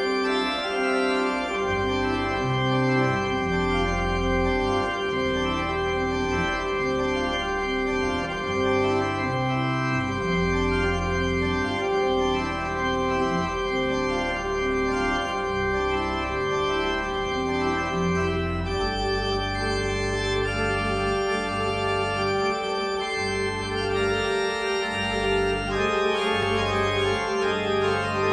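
Organ music: slow sustained chords over a bass that moves every second or two, with one middle note held throughout. The harmony shifts about two-thirds of the way through.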